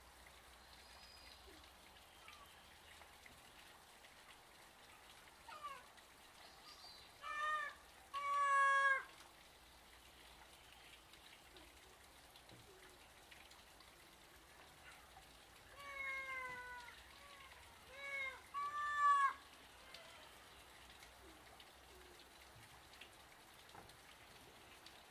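Ring-tailed lemurs giving meow-like calls in two bouts about ten seconds apart, each of about three calls, the last in each bout the longest and loudest, with pitch falling across the calls.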